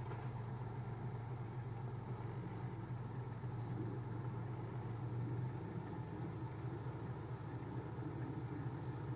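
Toyota Landcruiser 80 series engine running steadily, without rising or falling revs, as the 4WD creeps slowly up a steep rutted clay climb.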